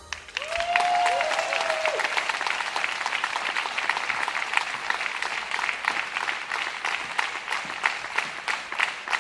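Theatre audience applauding at the end of a song, many hands clapping densely, with two short arching cheers from the crowd in the first couple of seconds.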